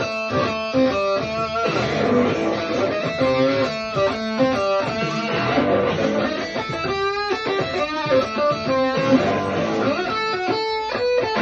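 Guitar improvising blues over a dirty blues backing track, choppy chords and single-note lines in a steady rhythm.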